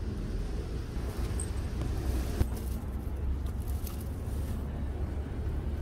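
Steady low outdoor background rumble, with a single sharp click about two and a half seconds in.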